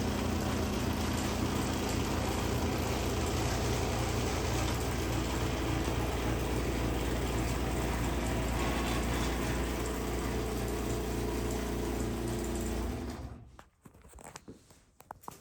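Craftsman 3/4 horsepower garage door opener running, its motor and drive moving a heavy sectional door with a steady hum, then cutting off abruptly about thirteen seconds in.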